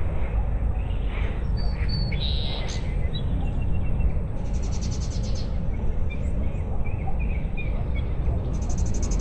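Outdoor ambience of several birds chirping and calling over a steady low rumble of wind on the microphone. A loud whistled note comes about two and a half seconds in, and a fast buzzy trill sounds twice, a little past four seconds in and again near the end.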